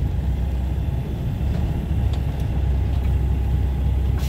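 Semi truck's diesel engine running steadily at low revs under load, heard from inside the cab as the truck pulls forward out of packed snow.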